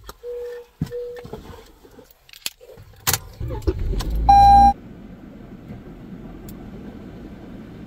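Keys jangling and knocks as someone settles into a Toyota car, with a door shutting with a thump about three seconds in. A little over four seconds in, the engine starts with a brief loud burst, then runs steadily at low level.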